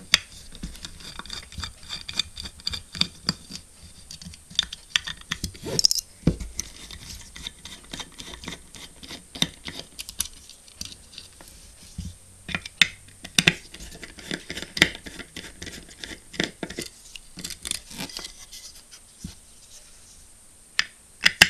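Small screwdriver unscrewing the circuit-board screws of a hard disk drive: a run of irregular clicks, taps and scratches of the bit and screws against the board and the metal casing.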